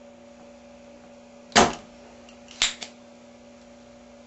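Spring-loaded vacuum desoldering pump (solder sucker) firing with a sharp snap about a second and a half in as it pulls molten solder out of a circuit-board hole, then another sharp click followed closely by a smaller one about a second later. A steady low hum runs underneath.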